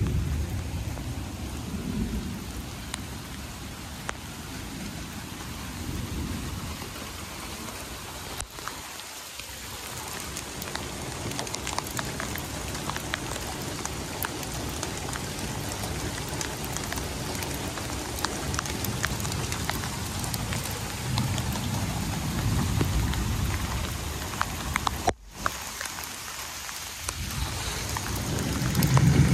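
Rain falling on grass and pavement with a low rumble underneath, and stormwater splashing out of corrugated drain pipes into a catch basin.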